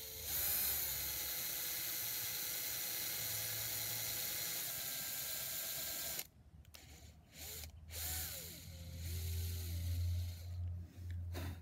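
Handheld drill with a very small bit boring a hole into an aerated concrete (AAC) block: the motor spins up and runs as a steady whine for about six seconds, then stops suddenly, followed by a few brief spin-ups and a low hum.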